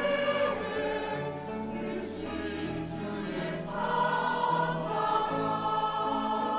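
Church choir singing a sacred anthem in held chords over a low accompaniment, with crisp sibilant consonants sung together a few times in the middle.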